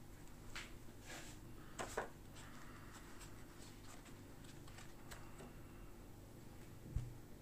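Faint handling noises from a stainless steel safety razor being turned over and taken apart in the fingers: a few light clicks and rubs, the sharpest about two seconds in, and a dull thump near the end.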